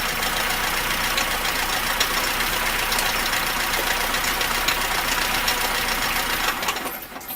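VAZ (Lada) engine idling with its accessory belt off and a clanking knock, then shut off near the end. The knock was later traced to a worn key on the crankshaft pulley.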